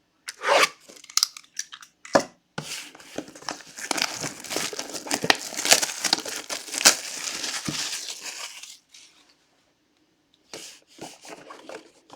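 Plastic shrink wrap being torn and crumpled off a sealed trading-card hobby box: a couple of sharp rips, then several seconds of continuous crinkling, stopping about three-quarters of the way through, with a few light handling clicks after.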